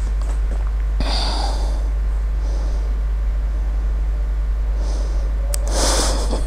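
A steady low electrical hum on the microphone, with a few soft breaths or puffs on the mic: about a second in, around two and a half seconds, near five seconds and again near six.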